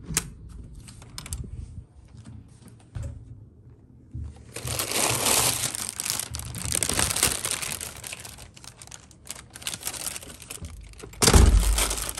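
A door handle clicking as a door is opened, then a thin plastic bag rustling and crinkling for several seconds as it is picked up and handled, with a loud bump near the end.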